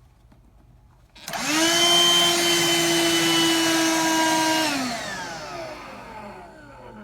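BLACK+DECKER 20-volt dustbuster cordless handheld vacuum switched on about a second in, its motor running with a steady whine for a few seconds, then switched off and spinning down with falling pitch. The owner complains that it blows out a lot of air but barely sucks.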